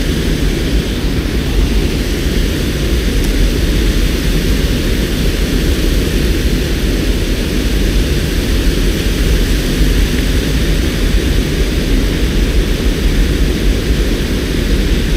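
Loud, steady roar of white water rushing over and below a river dam, a deep rumble under an even hiss.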